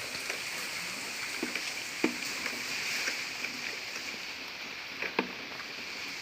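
Steady rain falling, a hissing patter, with a few sharper taps of drops striking nearby, the loudest about two seconds in and two more a little past the five-second mark.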